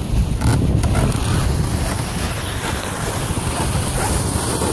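Wind buffeting the microphone of a phone riding on a moving dog sled: a loud, steady low rumble.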